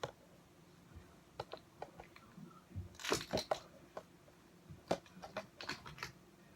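Freshly made slime being squished and stretched by hand, making irregular small wet clicks and crackles, in two denser clusters about three seconds in and around five seconds in.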